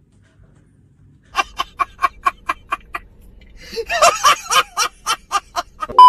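A man laughing hard in quick, even bursts, about four a second, growing louder and more strained toward the end. A loud steady test-tone beep cuts in at the very end.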